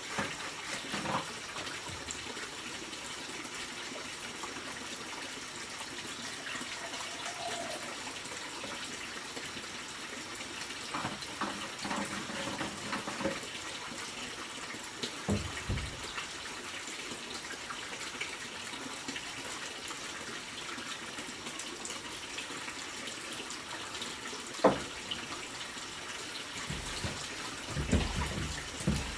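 Steady running water, with a few scattered knocks and low thumps over it, the sharpest about three-quarters of the way through.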